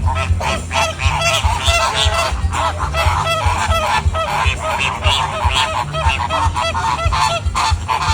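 A bird calling over and over in quick short calls, several a second, each one rising and falling in pitch.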